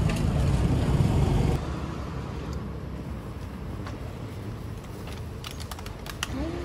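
A low rumble for about the first second and a half, then a clear plastic clamshell food container being handled as bread is pressed into it, with a quick run of sharp plastic clicks and crackles near the end.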